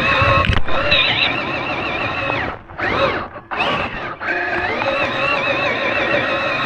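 RC car's electric motor and gearbox whining, the pitch rising and falling with the throttle and cutting out briefly twice near the middle.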